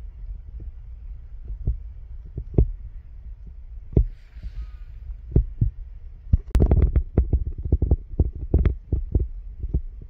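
Wind rumble and handling knocks on a handheld camera's microphone: a steady low rumble under irregular thumps, densest from about six and a half seconds in. A faint bird call sounds about four seconds in.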